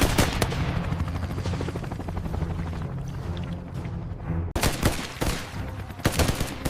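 Rapid automatic-weapon gunfire sound effects, many shots overlapping in a continuous firefight over a steady low rumble, with a brief drop-out about four and a half seconds in.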